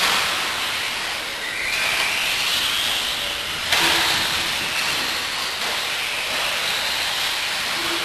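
Electric RC off-road buggies racing, their motors and gears whining as they accelerate, the pitch rising and falling over a steady hiss. A short low tone sounds about four seconds in.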